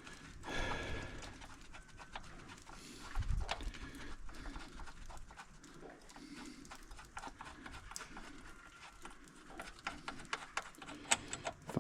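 Hand tools and loose bolts being handled on an engine block: scattered light metallic clicks and clinks at an uneven pace, with a dull thump about three seconds in and a quick run of clicks near the end.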